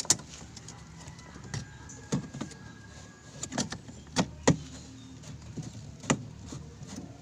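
Scattered knocks and clicks from a washing machine being handled, about seven sharp ones spread unevenly, over a faint steady low hum.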